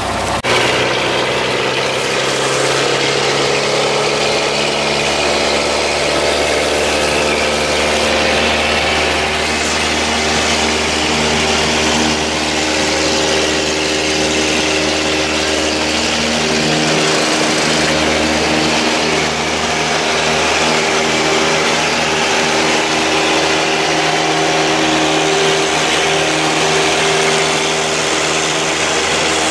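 A single-engine light propeller plane's engine and propeller, heard from inside the cabin. It rises to full power over the first couple of seconds, then runs steadily at takeoff power through the takeoff roll and the climb-out.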